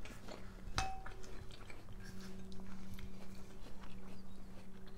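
Close-up eating sounds: a metal spoon clinks once against a ceramic bowl about a second in, then soft chewing and small mouth clicks over a steady low hum.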